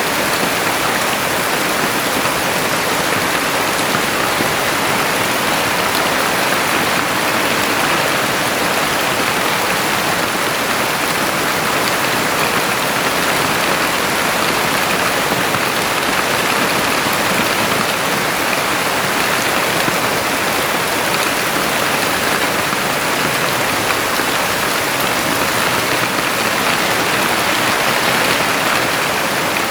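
Heavy rain falling steadily, an even dense hiss of drops on surfaces.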